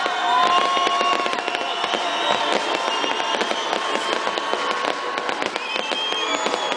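Fireworks display finale: many shells and crackle stars bursting at once in a dense, continuous crackling.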